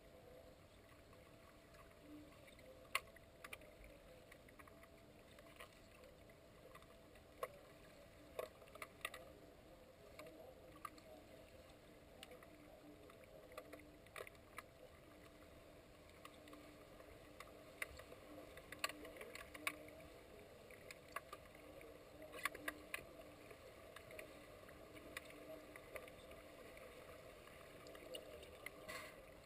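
Underwater pool sound picked up by a submerged camera: a faint steady hum with scattered sharp clicks and knocks carried through the water from the underwater hockey game, more frequent in the second half.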